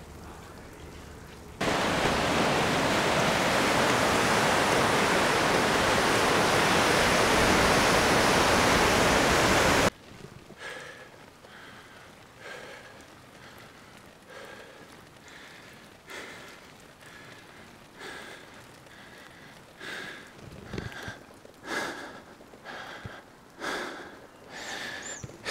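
A loud, steady rush of noise that starts and stops abruptly, then a cyclist's heavy, rhythmic breathing as he pedals hard, about one breath a second.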